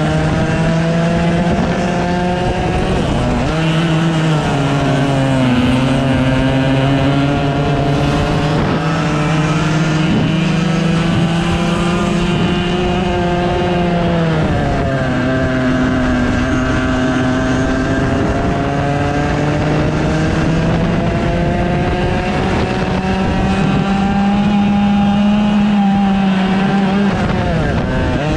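100cc go-kart engine heard from the driver's seat, revving high on the straights. Its pitch climbs steadily, then drops sharply off the throttle into the corners, three times.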